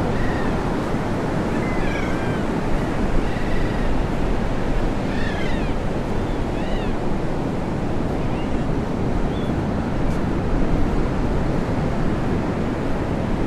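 Ocean surf breaking and washing in a steady roar of noise. A few short, high, arching calls sound over it in the first half.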